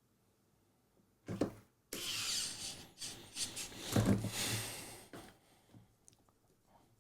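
A knock a second in, then about three seconds of rubbing and scraping as the keyboard case is handled and worked on by hand.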